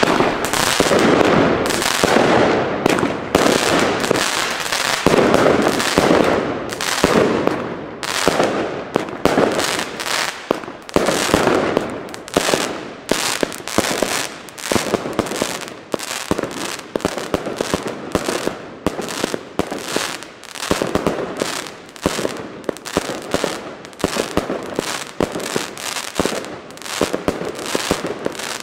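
El Gato Color Terremoto, a 50-shot consumer firework battery, firing a continuous string of sharp salute bangs mixed with colour-star bursts, roughly two shots a second.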